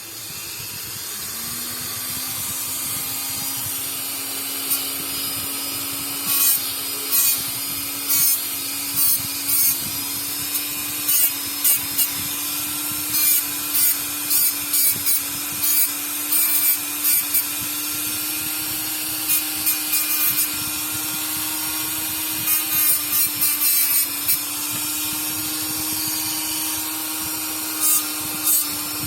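Small electric sanding tool spinning up about a second in and running steadily, with repeated short scratchy bursts as the abrasive is pressed against the scuffed toe of a sandal.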